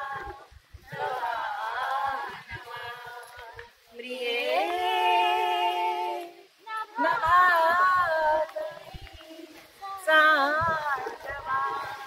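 Women singing a melody without accompaniment, in phrases with long held, wavering notes and short pauses between them.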